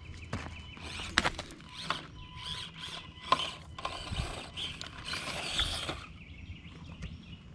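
Axial SCX24 1/24-scale crawler's small electric motor and geared drivetrain running in stop-start bursts as it crawls over loose gravel and rock, with crunching and sharp clicks from the tyres and stones. The driving stops about six seconds in.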